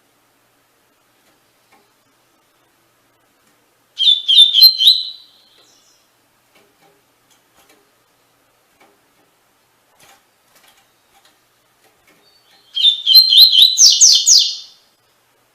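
Double-collared seedeater (coleiro) singing its 'tui tui' song: two quick, high, warbling phrases, a short one about four seconds in and a longer one near the end, with quiet between them.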